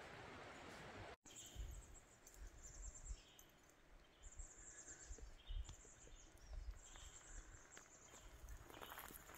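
Quiet forest ambience: faint, high-pitched bird calls repeating about once a second over a soft hiss and occasional low thumps. The sound drops out for an instant about a second in.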